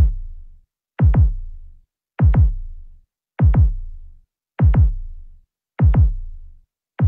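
Heartbeat sound effect: deep double thumps, lub-dub, each pair dropping in pitch and fading out, repeating steadily about every 1.2 seconds.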